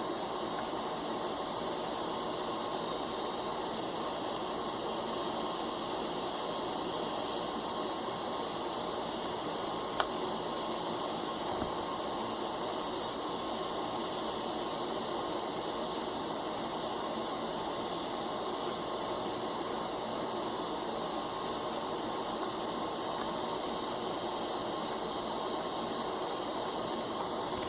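Steady background hiss with faint, thin steady tones running underneath, and one short click about ten seconds in.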